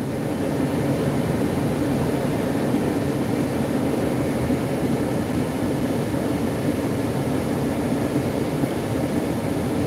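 Steady rumble of a van driving along a road, engine and tyre noise heard from inside the cabin.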